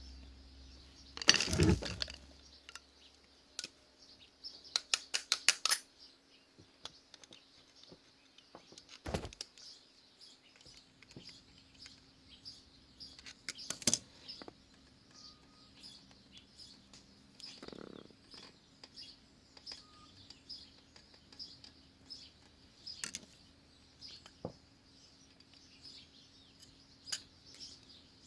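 Scattered small clicks and knocks of hand work on a motorcycle's rear brake caliper and pads, with a short rustle about a second and a half in and a quick run of clicks about five seconds in. Birds chirp steadily behind.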